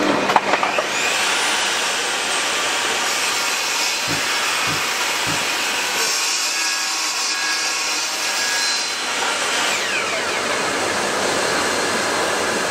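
Bosch GTS 10 XC table saw switched on, its motor whine rising smoothly as the blade spins up, then ripping a wooden board along the fence, with a few soft knocks as the board is handled. Near the end the saw is switched off and the whine falls away as the blade coasts down.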